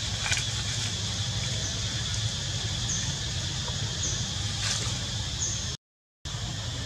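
Forest ambience: a steady high drone with a short high chirp repeating about once a second, over a low steady hum. The sound drops out for half a second near the end.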